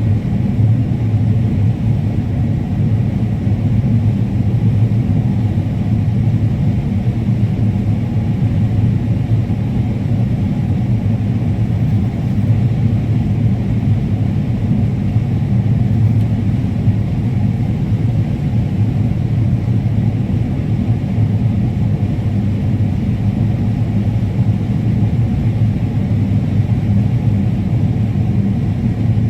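Combine harvester running steadily while cutting corn: a loud, even, low drone of engine and machinery.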